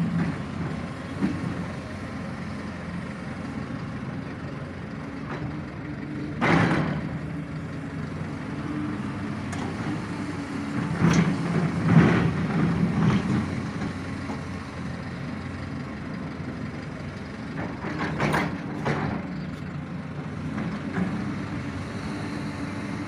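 Engine of the truck-mounted crane raising a utility pole running steadily, with several sharp knocks and clanks along the way, the loudest about six and twelve seconds in.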